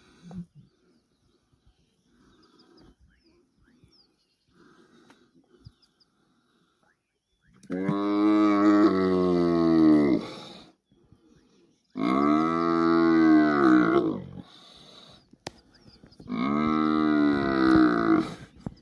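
Bull Cape buffalo bellowing in distress while pinned down by lions. Three long bellows, each about two and a half seconds and rising then falling in pitch, begin about seven and a half seconds in, after a quiet start.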